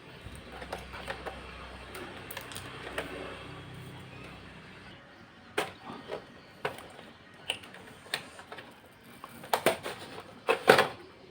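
Hard plastic and metal computer parts being handled and worked loose: faint rustling at first, then scattered sharp clicks and knocks about a second apart, crowding together and loudest near the end.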